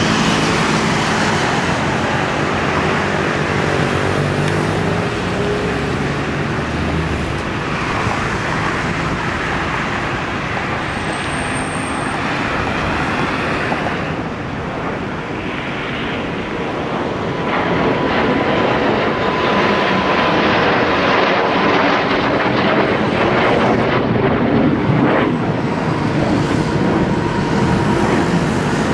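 Two JAS-39 Gripen fighter jets flying overhead, the steady roar of their Volvo RM12 turbofan engines easing slightly midway and swelling again as the pair splits and banks away.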